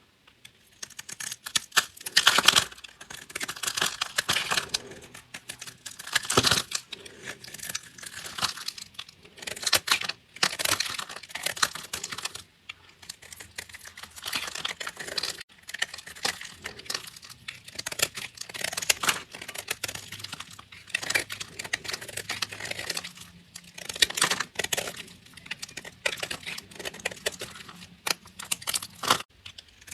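A blade cutting through crunchy bars of soap, giving crisp, crackling strokes in quick runs with short pauses between cuts.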